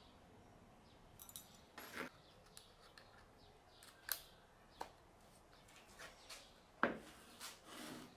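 Faint metal clicks and taps of hand-handling small hex-shank countersink drill bits and fitting one into a drill's quick-release bit holder, with a louder knock near the end.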